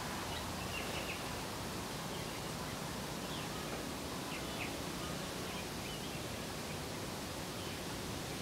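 Steady outdoor background hiss with a few faint, short high chirps from birds scattered through it.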